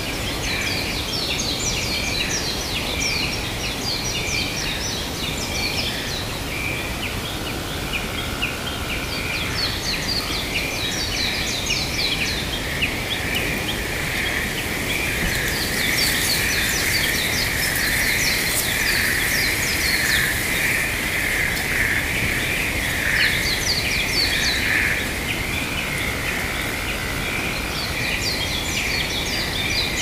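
A chorus of birds chirping and twittering in quick, high, overlapping calls that come and go in clusters, over a steady background noise.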